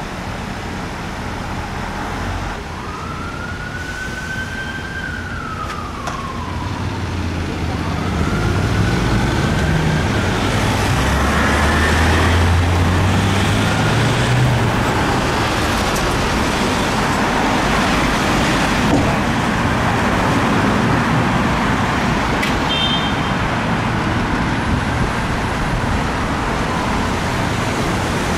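A Scania 64-metre turntable ladder fire engine's siren gives two slow rising-and-falling wails, then the truck's diesel engine builds to a heavy rumble, rising in pitch as it accelerates away. Road and traffic noise runs underneath and grows louder.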